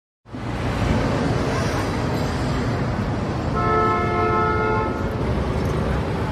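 Road traffic noise with a steady low engine rumble, cutting in suddenly just after the start; about three and a half seconds in, a vehicle horn sounds for over a second.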